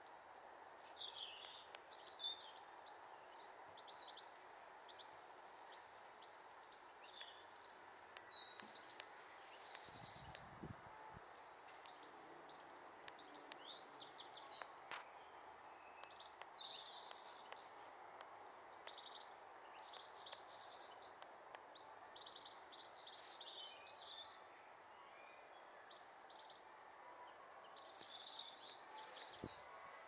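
A small songbird singing in short bursts of rapid high chirps every few seconds, over a faint steady background hiss. A brief low rumble about ten seconds in.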